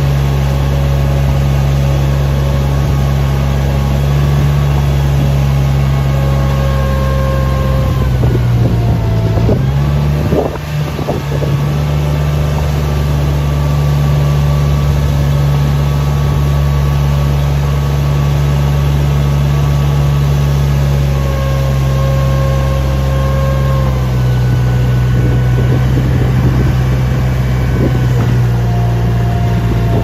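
Engine of a compact loader with a manure scraper blade running steadily under load as it pushes slurry along a concrete floor. The engine note dips and bends briefly about ten seconds in, with a few knocks.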